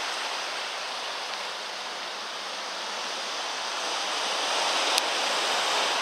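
Sea surf breaking and washing over a rocky boulder shore, a steady rushing that eases a little in the middle and swells again. A short click about five seconds in.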